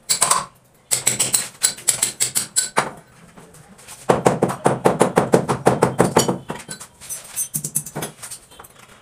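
Quick runs of hammer taps at the base of a door frame, hard metal-on-metal or metal-on-concrete strikes. One run comes about a second in, and a louder, faster run of roughly ten taps a second comes about four seconds in, with a few scattered knocks near the end.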